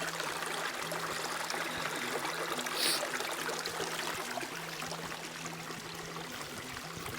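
Mountain stream flowing steadily over rocks, an even rushing and trickling, with a brief louder rush about three seconds in.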